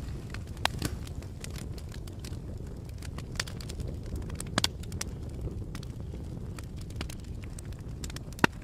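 Campfire burning with a steady low rumble, and wood crackling and popping at irregular moments; the sharpest pops come just under a second in, around the middle, and near the end.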